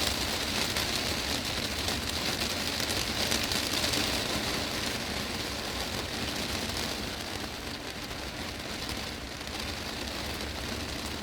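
Heavy rain falling on a glass greenhouse roof: a dense, steady patter of drops on the glass, easing slightly about seven seconds in.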